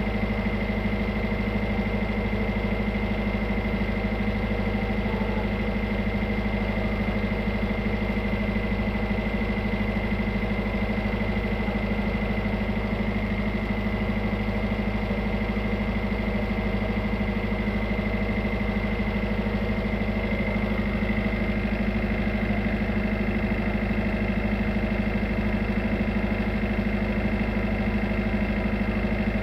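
Tugboat's diesel engine running steadily: a low drone with a thin high whine over it, growing slightly louder about two-thirds of the way through.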